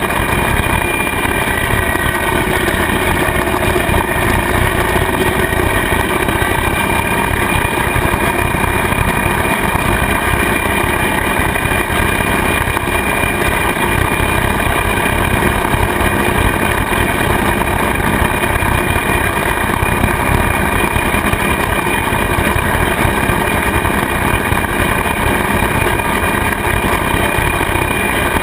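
Kubota tractor's diesel engine running steadily while it drives and pulls a rotary cutter (bush hog) through the grass; one even, unbroken engine-and-blade sound with no change in speed.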